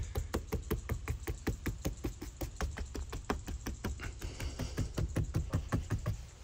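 Rapid, evenly spaced taps of a hand on a rubber door weatherstrip, about six a second, as the seal is worked onto the door-opening pinch weld. The taps stop about six seconds in.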